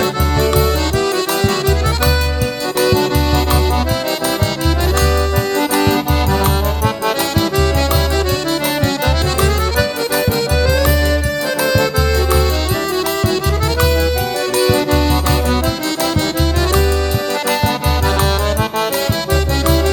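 Instrumental forró pé de serra: an accordion playing the melody over a steady low drum beat.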